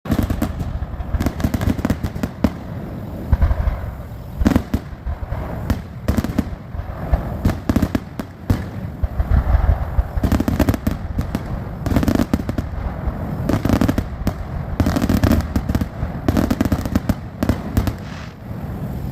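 Fireworks display: a continuous barrage of bangs and crackling with deep booms, many explosions overlapping without pause.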